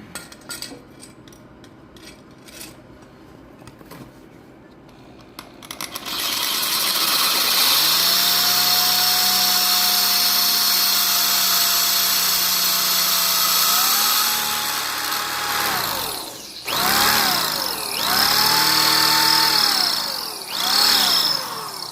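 Handheld electric power tool cutting into steel: after a few seconds of light handling clicks, the motor starts and runs under load with a loud hiss and a steady whine, then winds down and is spun up and down in three shorter runs near the end.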